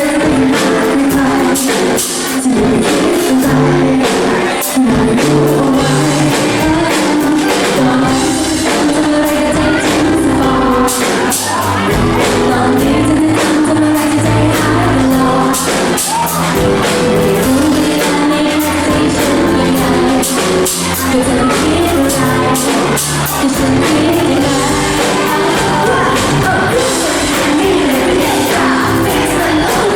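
A female pop vocal group singing live over a loud band backing with a steady beat.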